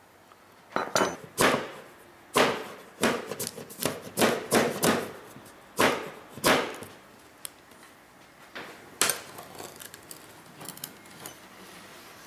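A small hammer tapping glass pieces and metal came snug into a stained-glass panel: about a dozen sharp taps over six seconds, some in quick pairs, then a few fainter knocks and clicks.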